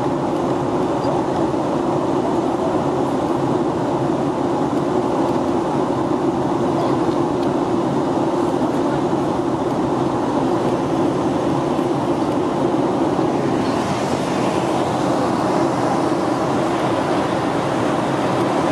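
Steady in-flight cabin noise of a Boeing 737-800 with CFM56-7B engines: the even rush of airflow over the fuselage and the engines' drone.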